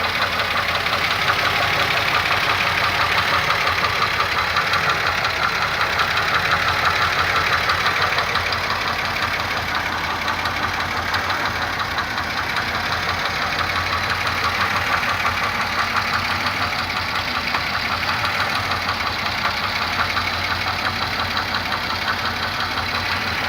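2002 Pontiac Grand Am GT's 3.4-litre V6 running steadily with a rapid, even knocking (golpeteo) from the engine, a noise whose cause the owner does not know.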